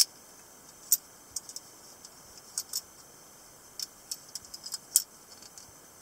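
Butterfly knife (balisong) being handled and opened by hand: a dozen or so sharp metallic ticks and clacks from its latch and handles, in irregular groups, the loudest at the start, about a second in and about five seconds in.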